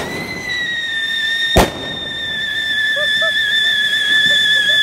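Ground fountain firework spraying sparks with a steady high whistle, and one sharp firecracker bang about a second and a half in.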